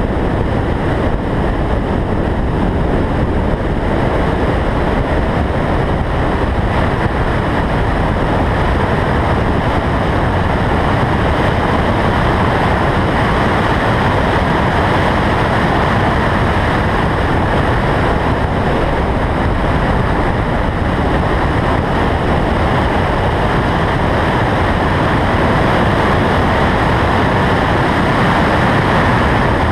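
Steady wind rush over a car's roof-mounted microphone at track speed, mixed with the car's engine and tyre noise.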